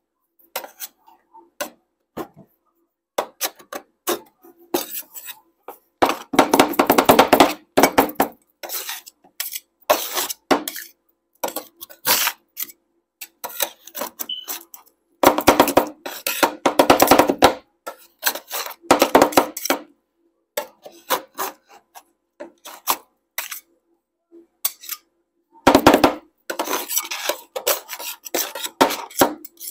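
Flat metal spatulas scraping and chopping on a stainless-steel cold plate, working ice cream base into chopped candy. Scattered scrapes and taps, with three long runs of rapid strikes: about six seconds in, about fifteen seconds in, and near the end.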